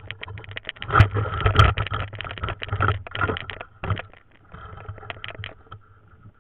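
Close, irregular splashing, rustling and scraping as bare hands grope through shallow ditch water and grass and grab a snakehead fish. The noise is busiest in the first few seconds and dies away about four seconds in.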